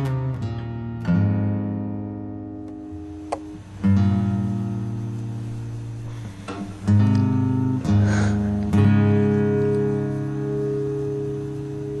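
Acoustic guitar music: slow strummed chords, each left to ring and fade before the next.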